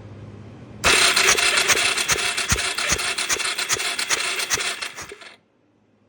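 Suzuki DR650's electric starter cranking its single-cylinder engine during a spark plug test, without the engine firing. It starts about a second in, runs with a rapid, uneven ticking for about four and a half seconds, and stops abruptly.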